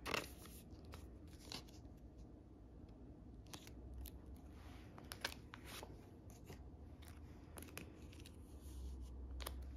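Faint crinkling and rustling of thin plastic as a photocard in a clear sleeve is handled and slid into a plastic binder page pocket, with scattered light ticks, the sharpest right at the start.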